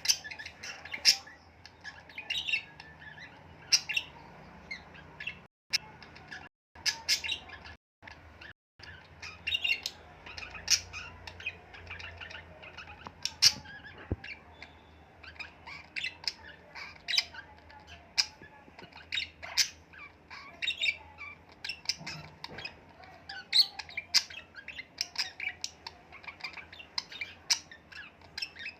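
Birds chirping and squawking: many short, sharp calls at an irregular pace, with four brief dropouts to silence between about five and nine seconds in.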